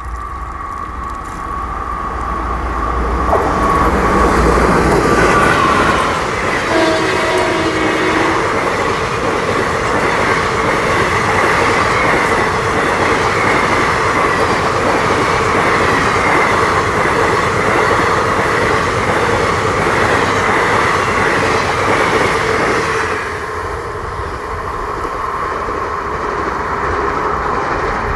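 A WAP4 electric locomotive and its superfast express coaches passing at speed. A deep rumble builds over the first few seconds as the locomotive comes by, then the coach wheels keep up a steady loud clatter on the rails. About five seconds before the end the sound drops off as the last coach passes and the train draws away.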